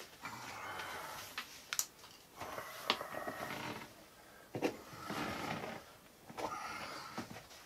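Handling sounds at a router table as it is set up: stretches of scraping and rustling, about a second each, with a few sharp clicks and knocks as the fence and the dust-extraction hose are moved and adjusted.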